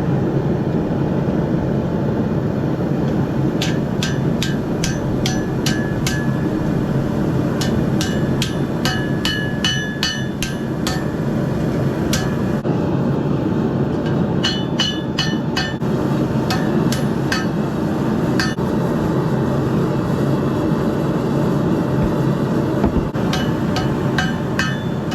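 Hammer blows on hot steel over an anvil: flattening out a piece of old mower blade for a cleaver. The blows come in runs of two to three a second, each with a short metallic ring, and there are pauses of a few seconds between runs. A steady roar runs underneath.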